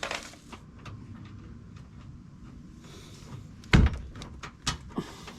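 Knocks and clunks from tools being handled: a sharp knock at the start, a loud thump a little under four seconds in, then a few lighter clicks and knocks.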